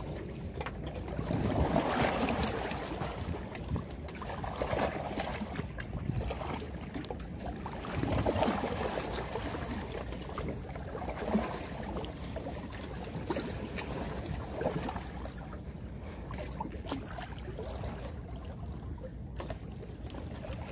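Sea water washing and slapping against concrete breakwater blocks, surging every few seconds, with wind on the microphone.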